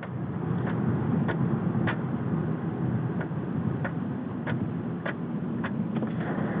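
Cabin sound of a 2005 Pontiac Grand Prix GXP with its 5.3 L LS4 V8, driving slowly: a steady engine and road rumble. A light tick repeats about one and a half times a second throughout.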